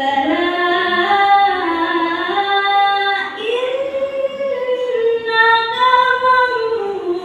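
A girl's voice reciting the Quran in melodic tilawah style, unaccompanied, holding long ornamented notes. The pitch steps up to a higher held line about three seconds in and sinks again near the end.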